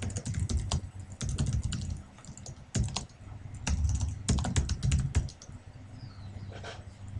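Typing on a computer keyboard: quick runs of keystroke clicks, with short pauses about two seconds in and again near the end.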